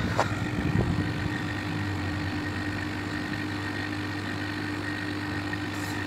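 Home-built R290 heat pump for a hot tub running steadily: a constant low hum with a steady higher tone, over the rush of its fan blowing air out fast.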